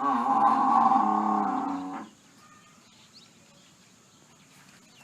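A buffalo gives one low, loud call lasting about two seconds, starting abruptly and dropping slightly in pitch just before it stops. It is labelled as an angry buffalo.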